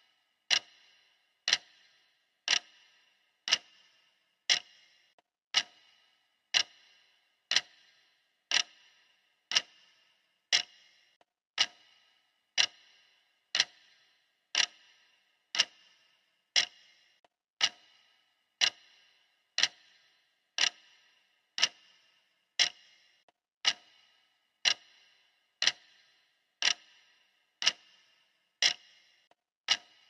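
Clock ticking sound effect keeping time with a countdown timer: one sharp tick every second, evenly spaced, each with a short ring.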